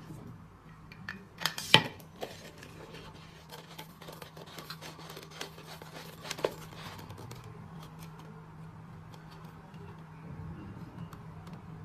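Small hard objects being handled: a run of clicks and clinks, with the sharpest knocks about a second and a half to two seconds in and again about six and a half seconds in, over a steady low hum.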